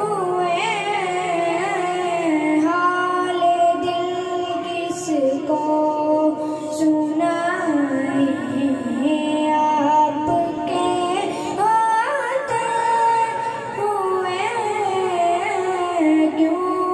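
A boy singing a naat, a devotional praise poem, into a microphone over a PA sound system: a high child's voice holding long, wavering notes.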